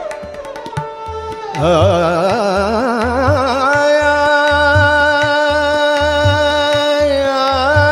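Dadra in raga Bhairavi: tabla keeping the lilting six-beat dadra rhythm, with a sarangi accompanying. About a second and a half in, a loud melodic line enters, wavering as it climbs, then settles on a long steady note.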